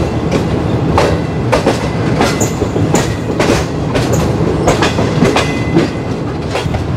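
Passenger train coaches rolling over rail joints, wheels clacking about twice a second over a steady low hum.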